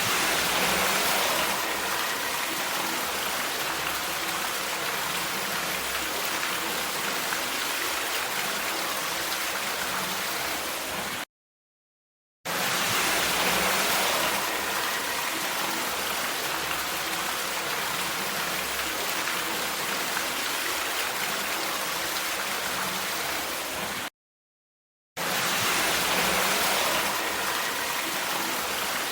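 Steady rain, an even hiss of falling water. It cuts to dead silence for about a second twice, each time starting over with the same recording.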